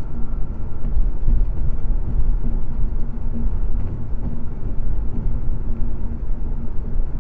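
Steady low road and engine noise of a car at highway speed, heard from inside the cabin through a dashcam microphone.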